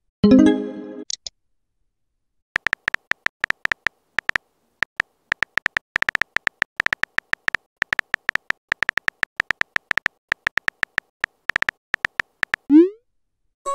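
Phone keyboard typing clicks, a quick irregular run of short taps lasting about ten seconds. Just after the start a chat app's message chime sounds. Near the end a short rising swoosh marks a message being sent.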